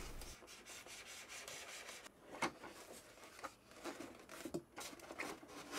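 Faint rubbing and a few light clicks of a foam model-aircraft wing being slid onto its spar tube and fitted against the fuselage.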